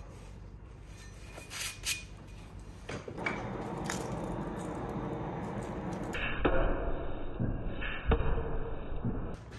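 A few light metal clinks as steel is handled, then the steady rush of a coal forge fire, louder in the second half. Near the end, one heavy blow as the glowing steel is struck on the anvil.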